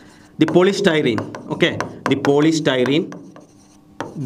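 A man speaking, with a few short taps and rubs of a marker writing on a whiteboard.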